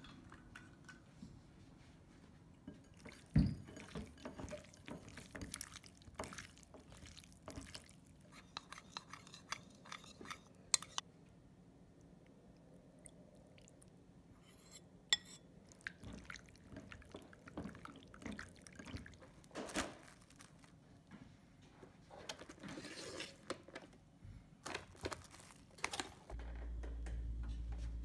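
Liquid poured over raw fish slices in a ceramic bowl and stirred in, with repeated clinks and knocks of a utensil against the bowl. Near the end a steady low hum begins.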